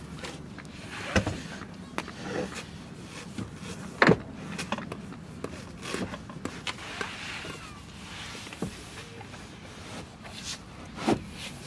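Knocks and bumps of someone climbing about inside the back of a camper van, shifting gear and bedding on its wooden platform, with rustling between. The sharpest thumps come about a second in, about four seconds in and near the end.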